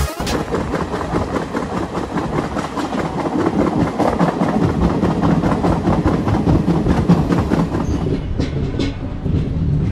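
Indian Railways Chennai Mail express running, heard from an open coach door: the wheels clatter over the rails in a dense, steady rattle under the running noise. About eight seconds in the hiss thins and a few sharper clacks stand out.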